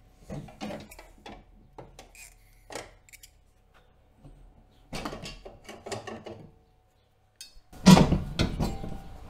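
Clatter of a riding mower's grass bagger being taken off: the plastic cover and metal mounting bracket knocking and clicking as they are handled. A louder clunk comes near the end.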